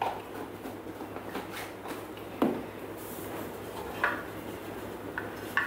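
A few separate clinks and knocks of a metal measuring spoon and the Thermomix's stainless-steel mixing bowl being handled. The loudest knock comes about halfway through.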